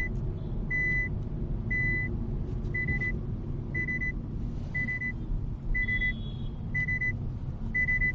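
Nissan Magnite's in-cabin warning chime beeping about once a second, each beep a short steady high tone, which the occupants take for the seat-belt reminder. Under it runs the car's low rumble heard from inside the cabin.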